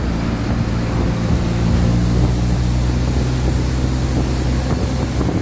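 Mercedes-Benz OF-1722M city bus's diesel engine running steadily under way, a low, even drone.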